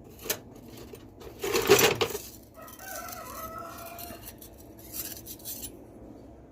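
Small steel hand tools clinking and clattering as they are handled and set into a tool box. The clatter is loudest about one and a half seconds in, with a few lighter clicks near the end. Between them comes a drawn-out squeal lasting about a second and a half.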